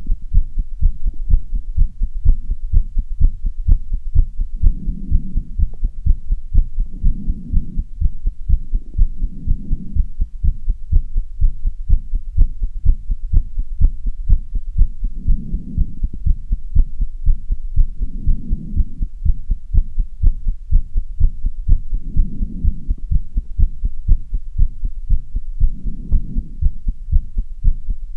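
A person's heart beating fast and regularly after half an hour of running on stairs, picked up by a phone's recorder as a steady train of low thuds. A soft rush of heavy breathing swells every few seconds.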